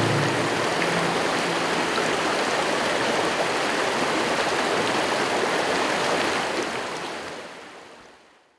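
A brook's water running over rocks, a steady rush that fades out over the last two seconds.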